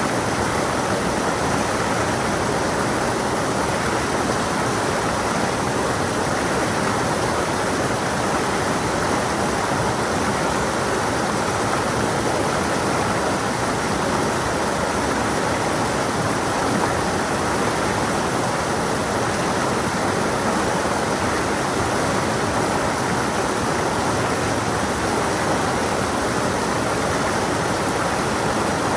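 Water of a stream rushing and splashing over rocks, steady and unbroken.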